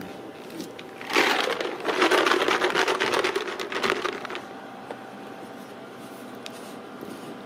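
Plastic jar of dry cat treats shaken hard, the treats rattling rapidly inside for about three seconds, starting about a second in.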